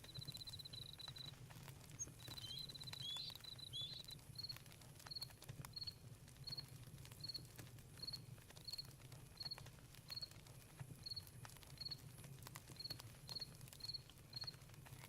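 Cricket trilling, then chirping steadily at about one and a half chirps a second, over a campfire's scattered soft crackles. A few short whistled glides sound about three seconds in.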